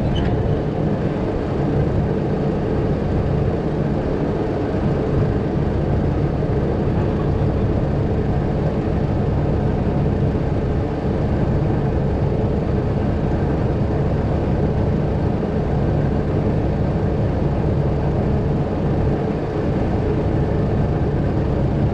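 Heavy recovery truck's diesel engine running steadily at raised revs, a constant low drone.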